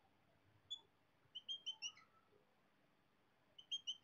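Faint short squeaks of a marker pen on a whiteboard as a dashed box is drawn: one squeak, then two quick runs of several squeaks, one with each dash.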